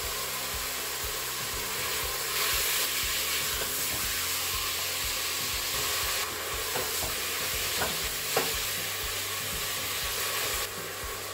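Sliced chicken sizzling as it browns in the Crockpot Express multi-cooker's pot on its brown/sauté setting: a steady frying hiss.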